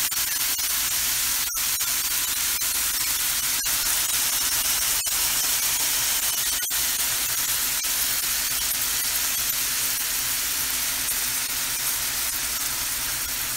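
Ground beef with red onion and peppers sizzling steadily in its own rendered fat in a stainless steel frying pan, with a few small pops, the burner just switched off.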